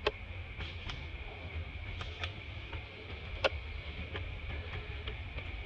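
Forest ambience: a steady high insect drone over a low rumble, with scattered sharp clicks and ticks, the loudest near the start and about three and a half seconds in.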